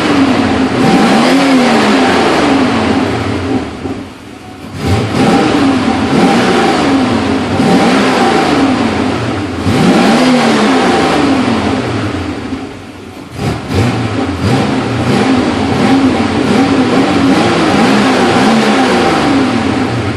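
Porsche 928S V8 engine revving up and down over and over, dropping back briefly about four seconds in and again about thirteen seconds in. It is running smoothly after a tune-up and a fuel-system cleaning.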